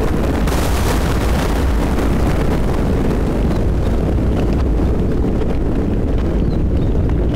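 Thunderstorm: deep, continuous rolling thunder, with a sharp crack about half a second in that fades over the next second or two, over a steady hiss of rain.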